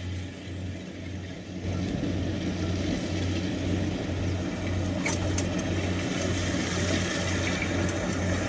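Kubota combine harvester's diesel engine running, with a low hum that pulses about twice a second. It gets louder about two seconds in.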